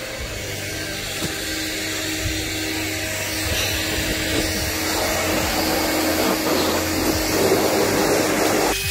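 Electric air blower running steadily, blowing loose dust out of a car's engine bay, with a steady hum and a rush of air that grows louder about halfway through.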